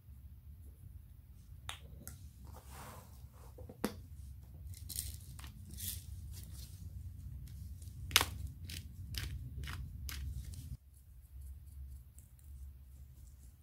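Scattered clicks, taps and short rustles of plastic spice containers and a scoop being handled over a small ceramic bowl as spices are added, the sharpest tap a little past the middle.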